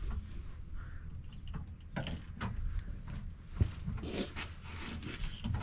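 Hand tools clinking and knocking on the metal shaft of a feed mixer's screws as it is being unbolted, with one sharp knock about three and a half seconds in and a low steady hum underneath.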